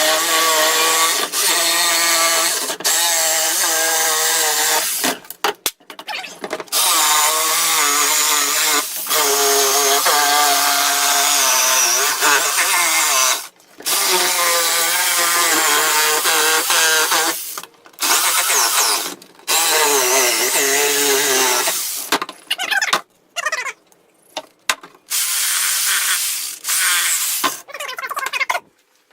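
Electric power tool cutting wood, its motor whine dipping and recovering in pitch under load. It stops and starts several times, with shorter runs and more pauses near the end.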